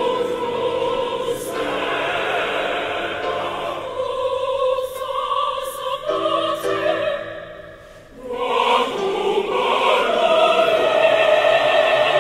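Large mixed choir of women's and men's voices singing sustained chords together. The sound thins and fades to a hush about seven to eight seconds in, then swells back at full strength.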